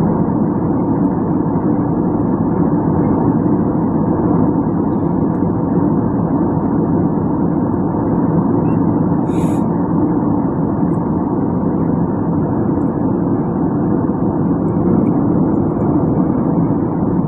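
Jet airliner cabin noise in cruise: a steady, loud rushing drone of engines and airflow, with a faint steady hum in it. A brief higher sound stands out about halfway through.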